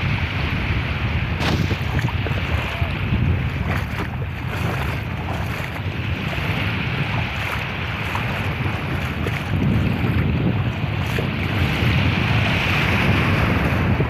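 Small waves breaking and washing up the shore in shallow water, with wind buffeting the microphone as a steady low rumble.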